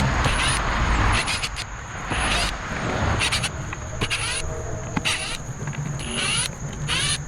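Scratchy rustling and scraping in short, irregular strokes as the potato box is broken into and its soil is dug into by hand, over a steady thin high-pitched whine.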